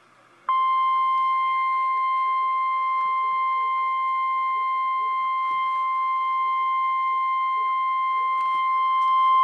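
NOAA Weather Radio 1050 Hz warning alarm tone: one steady, unbroken tone that starts abruptly about half a second in and holds, getting a little louder near the end. It is the alert signal that opens a weather warning broadcast, here for a tornado watch.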